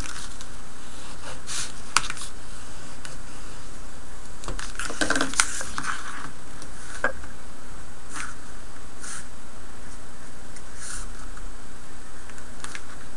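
Heavy cardstock being folded over and pressed down by hand and with a bone folder: scattered crinkles, scrapes and light taps, with a cluster of them about five seconds in, over a steady background hiss.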